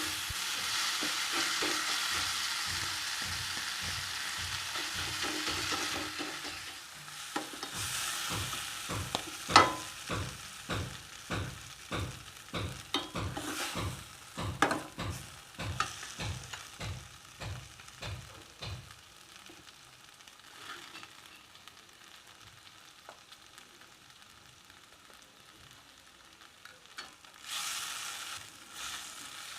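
Garlic, shallots and tomato sautéing in oil in a pan. A steady sizzle gives way to a spoon stirring and knocking against the pan, about two strokes a second, which fade after the middle. A short sizzle comes near the end.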